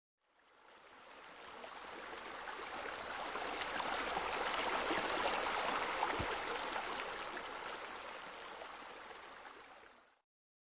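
Flowing, trickling water, an added sound effect that fades in, swells in the middle and fades out over about ten seconds.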